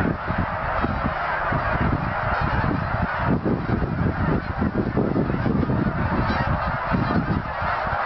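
A large flock of Canada geese honking in flight, many calls overlapping into a continuous din, with low buffeting on the microphone.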